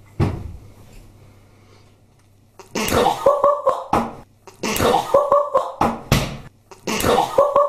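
A kitchen wall-cupboard door shuts with a thump just after the start. Later a man coughs in three short fits, each a few quick coughs, about two seconds apart.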